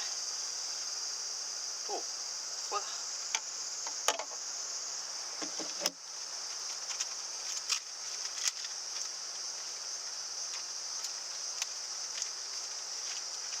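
Steady, high-pitched chirring of insects, with a scattering of small clicks and light knocks.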